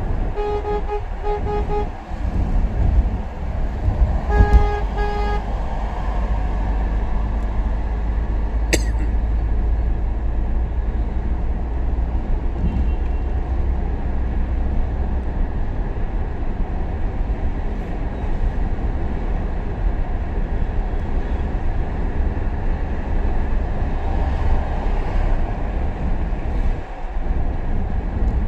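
Vehicle horn sounding in two short bursts in the first few seconds, over the steady low rumble of a vehicle driving on the road.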